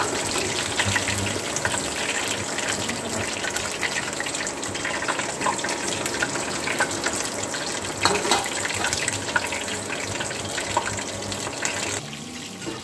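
Marinated chicken pieces deep-frying in hot oil: a steady, dense sizzle with many small crackling pops, which drops away near the end.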